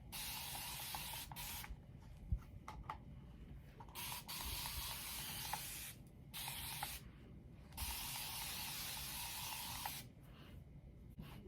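Spray bottle misting water onto the hair to wet it down, in four hissing bursts of one to two seconds each with short pauses between.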